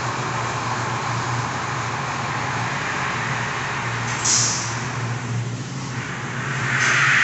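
1993 Spartan/Luverne fire engine's diesel engine running steadily as the rig pulls away, with a short air-brake hiss about four seconds in. A louder rushing noise starts near the end.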